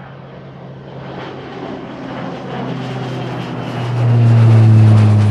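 Aircraft engine sound effect: a steady low drone under a rushing noise that swells and is loudest from about four seconds in.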